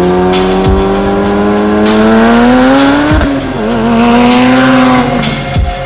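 A car engine revving, its pitch climbing steadily and then dropping sharply about three seconds in, mixed with music that has a steady beat.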